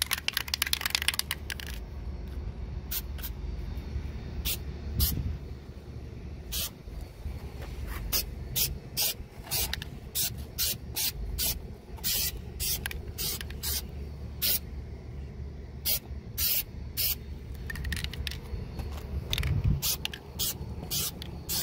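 Aerosol can of black spray paint sprayed in many short hissing bursts, with a longer spray at the start, touching up bare metal.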